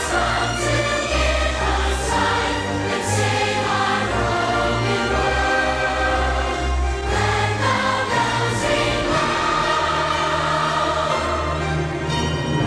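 A choir singing with instrumental accompaniment under it, sustained low bass notes changing every second or two.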